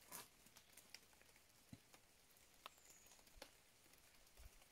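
Near silence: quiet forest ambience with faint, scattered ticks and crackles, and one faint high chirp about three seconds in.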